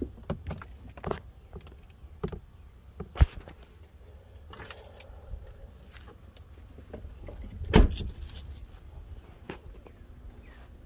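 Keys and a flip-key fob jangling in hand, with scattered clicks and knocks and one heavier thump about eight seconds in.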